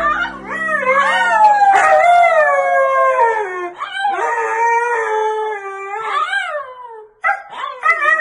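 A dog howling: long, wavering calls that slide down in pitch, three in a row with short breaks between them.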